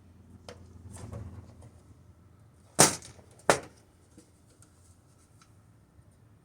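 Two sharp clacks about 0.7 s apart near the middle, with a few faint clicks before them: hard parts knocked or set down during the hands-on disassembly of a computer.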